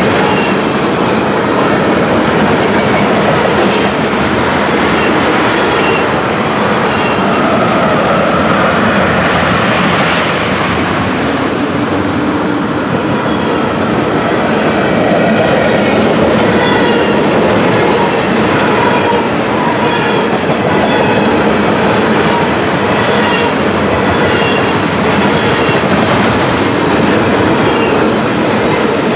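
Freight train of loaded ethanol tank cars rolling past: a steady, loud rumble of steel wheels on rail, with repeated clicks and short faint high-pitched wheel squeals.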